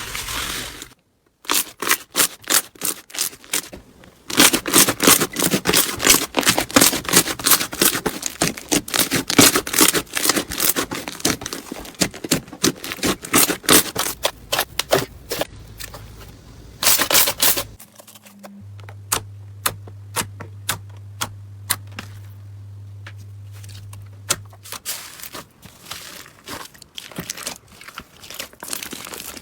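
Slime being worked by hand, giving a dense run of crackling, popping clicks. After about 18 seconds the clicks thin out, and a low steady hum sits under them for several seconds.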